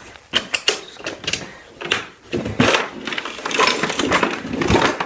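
Handling noise close to the microphone: quick, irregular clicks, knocks and rattles of plastic tackle boxes and lures being shifted about.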